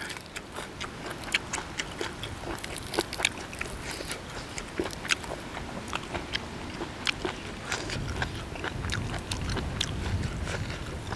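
Close-up eating sounds: chewing crunchy apple snail salad and fresh greens, with many short crisp clicks and crunches.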